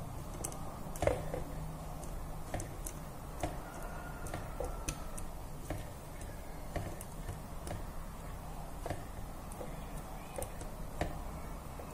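Small, irregular clicks and taps of metal multimeter probe tips touching and sliding on a phone circuit board, the sharpest about a second in, over a faint low hum.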